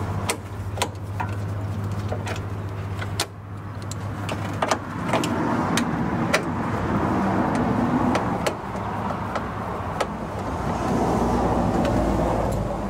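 Scattered sharp clicks and taps of a screwdriver working the plastic grille screws and clips, over a steady low hum.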